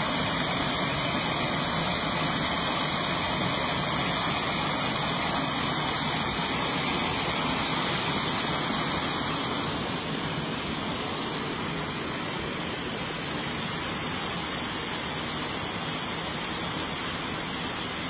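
Small waterfall: hill-stream water spilling in many thin streams over a low stone ledge and splashing onto rocks below, a steady rushing splash that drops a little in level about ten seconds in.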